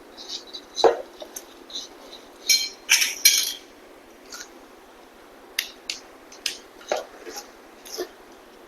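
Shoe rack parts being handled and fitted together: a string of light clicks, clinks and knocks as the poles and shelf pieces are pushed and snapped into place, busiest about three seconds in.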